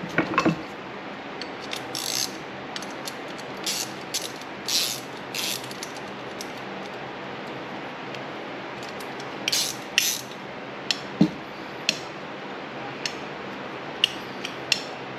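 Irregular metal clicks and short rasps of hand tools and small parts as a nut and lock washer are fitted and tightened on an RB26 individual throttle body.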